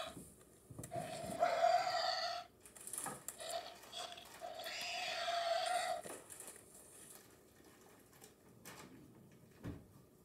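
Electronic Pteranodon toy playing its recorded creature calls through a small speaker, as its buttons are pressed. There are two long calls of about two seconds and a second and a half, with shorter bits between. A few faint clicks of handling follow.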